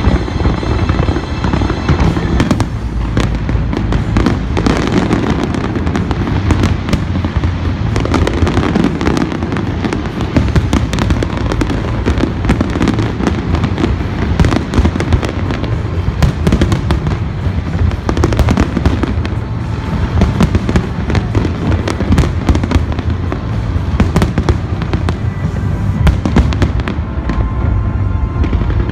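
Fireworks display in full swing: a dense, continuous run of bangs and crackles, with music playing underneath.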